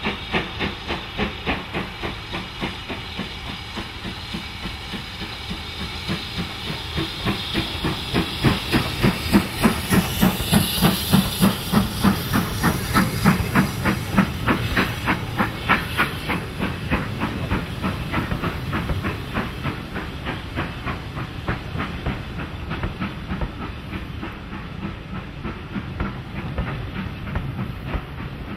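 Steam locomotive passing with a fast, even beat of exhaust chuffs that grows louder as it draws level, with a burst of steam hiss at its loudest, about ten seconds in. The beat then eases as the carriages roll past.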